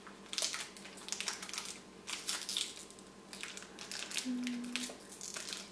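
Crinkling and crackling of a small plastic candy wrapper, an individually wrapped mini Kit Kat, being twisted and peeled open by hand in irregular bursts.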